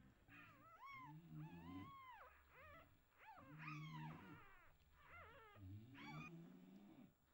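Newborn English bulldog puppies crying and squeaking, a string of seven or eight short, high cries that rise and fall in pitch, with lower grunting sounds underneath.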